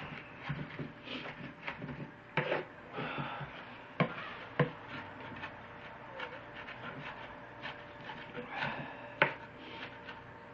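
Kitchen knife scraping and rubbing over a wooden cutting board, gathering finely chopped onion, with a few sharp knocks of the blade on the board.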